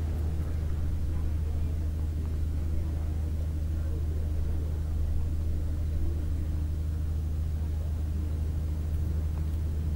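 Steady low hum or rumble that does not change.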